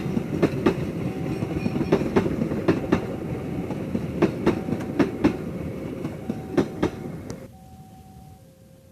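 Train passing close by, its wheels clicking over the rail joints in small groups over a steady rumble, which cuts off suddenly about seven and a half seconds in as the last car goes by. A two-note warning signal alternates behind it and carries on after the train has passed.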